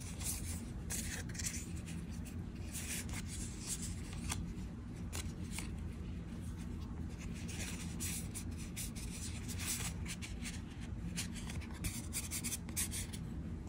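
Magic: The Gathering trading cards handled in the hands, the cards sliding and rubbing against one another in a run of short swishes and light clicks as they are flipped through, over a steady low hum.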